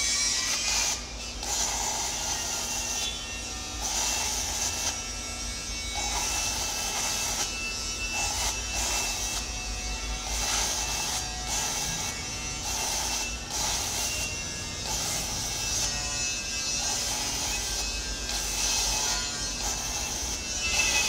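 Electric stick (arc) welding on a steel excavator bucket: a steady crackling buzz from the arc, breaking off briefly every second or two.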